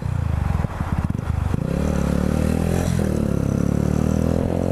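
Honda motorcycle engine under way: uneven pulsing for about a second and a half, then pulling steadily with its pitch slowly rising as it accelerates on a freshly fitted chain and sprocket.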